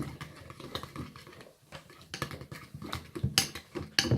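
Utensil stirring a sticky mix of glue and laundry detergent in a container, turning it into slime: irregular light taps and clicks, with two sharper clicks near the end.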